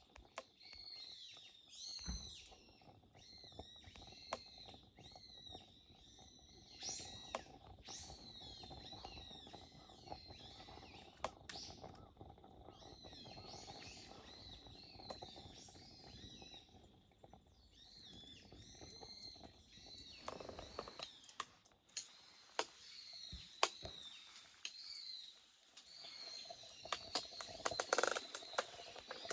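Wood fire burning in a portable rocket stove, giving off a high, wavering whistle that chirps and warbles like a bird over a steady hum. The hum fades out about two-thirds of the way through. Sharp crackling pops from the burning wood come throughout and cluster near the end.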